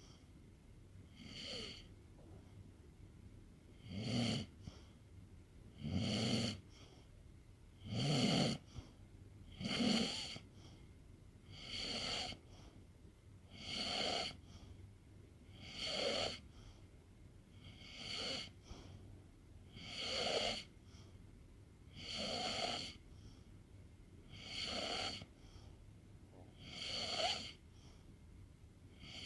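A sleeping pet snoring in a slow, regular rhythm, one breath about every two seconds. The snores are deeper and louder for the first several breaths, then lighter.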